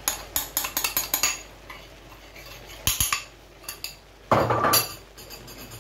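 A spoon scraping and tapping on a small ceramic bowl to knock spice mix out of it: a quick run of clinks, then a single knock about three seconds in and a louder, longer clatter near the end.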